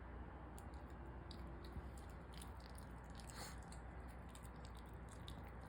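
A Yorkshire terrier licking and chewing, its mouth making faint, irregular wet clicks.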